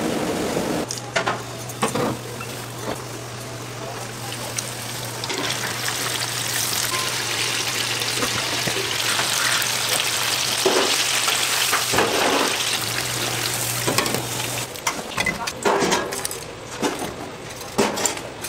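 Flour-coated chicken pieces deep-frying in hot oil in a wire fryer basket: a steady sizzling hiss that builds a few seconds in, over a low steady hum, with a few knocks and rustles at the start and near the end.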